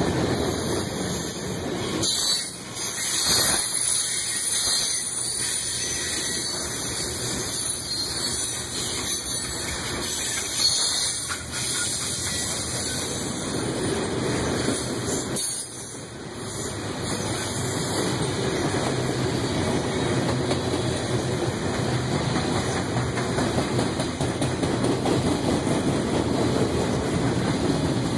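Freight cars of a manifest train rolling past close by: a steady noise of steel wheels on the rails, with two brief dips in level.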